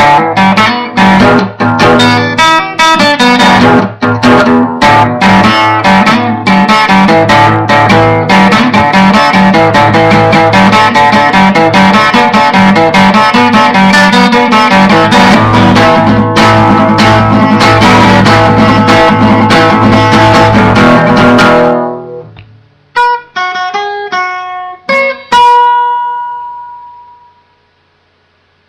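Guitar improvisation, dense strumming and picking, recorded loud and overloaded through a webcam microphone. The playing stops suddenly about three quarters of the way through, a few single notes follow, and the last note rings out and fades away.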